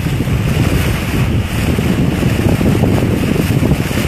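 Loud wind buffeting the microphone over the rushing splash of a sailboat's bow wave along the hull as it sails.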